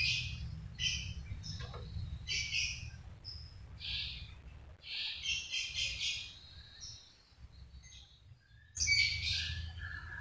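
Long-tailed shrike (cendet) singing in short, varied bursts of chirps and whistles, a song stuffed with mimicked phrases of other birds. The song pauses for over a second near the end, then returns with a loud burst.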